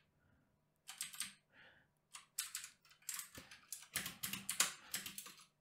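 Typing on a computer keyboard: a few separate keystrokes at first, then quicker runs of keys in the second half.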